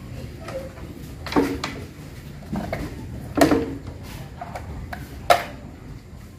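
Metal rigging hardware on stacked PSD loudspeaker cabinets being handled while one cabinet is fitted onto the other: a string of knocks and clicks, three sharper ones about a second and a half, three and a half, and five seconds in.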